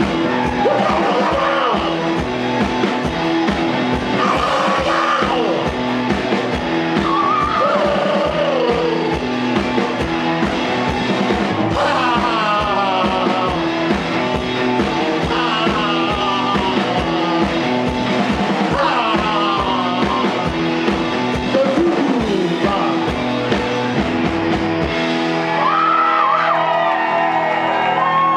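Live rock band playing loud, with a steady drum beat, electric guitar and swooping, yelled vocal notes. The drums stop about 25 seconds in, leaving a ringing final chord in a large room.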